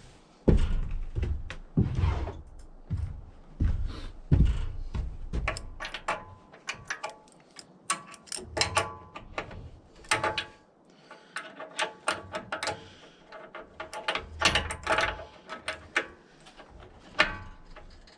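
Small metal plumbing fittings and tools being handled while a lubrication valve is fitted: several dull thunks in the first few seconds, then a run of sharp metallic clicks and clinks, some with a brief ring.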